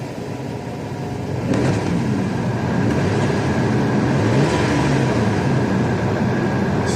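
BMW N46B20 2.0-litre four-cylinder petrol engine running at idle with a fresh ignition coil on cylinder 2, and no longer misfiring. It gets louder about a second and a half in, then runs steadily.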